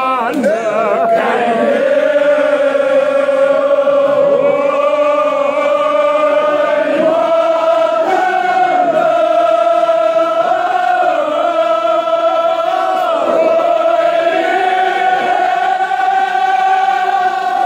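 Men's voices chanting a Kashmiri marsiya together, holding long drawn-out notes whose pitch rises and falls slowly.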